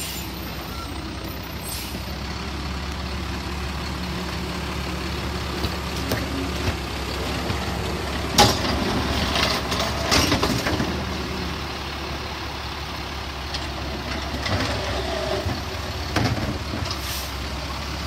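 Automated side-loading garbage truck running steadily while its arm grabs a curbside cart, lifts it and empties it into the hopper. Sharp metal clanks from the arm and cart, the loudest about eight seconds in, more around ten seconds and near the end.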